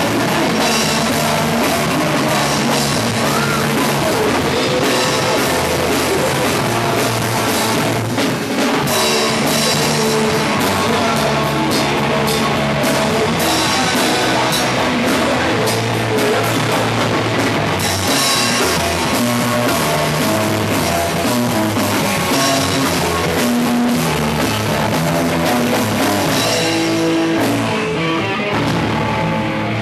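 Rock band playing live: electric guitars and a drum kit, loud and dense.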